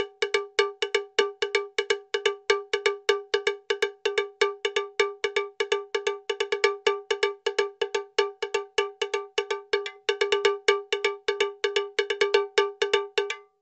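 A struck bell-like tone at one fixed pitch, repeated rapidly about seven times a second in an uneven pattern; it cuts off abruptly near the end.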